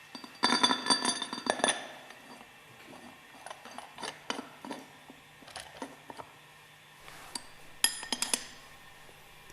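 Metal parts of a separator bowl clinking and ringing as they are handled, with the plate being mounted and the eye bolt screwed into the bowl bottom. A burst of ringing clinks comes about half a second in, lighter taps follow through the middle, and another cluster comes about eight seconds in.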